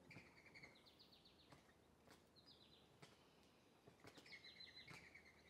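Faint birdsong: quick runs of short chirps, one near the start, one mid-way and more in the last second and a half, with a few faint clicks between them.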